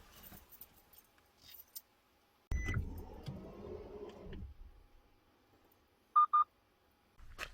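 A low rumbling, handling noise for about two seconds, then two short, high electronic beeps in quick succession.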